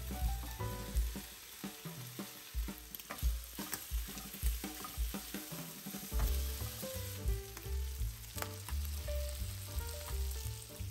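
Diced bacon and sliced mushrooms sizzling in a nonstick frying pan, stirred and scraped round with a wooden spatula, giving a steady sizzle broken by short scrapes and taps.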